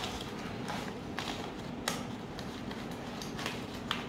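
Aluminium foil tray crinkling as fingers press slime down into it: a handful of short, sharp crinkles over a steady low hum.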